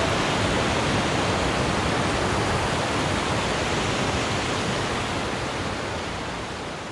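Mountain stream rushing over and between boulders: a steady rush of water that fades out toward the end.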